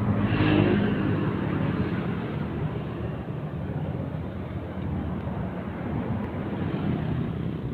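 Steady low mechanical rumble, like an engine running, under a constant background noise.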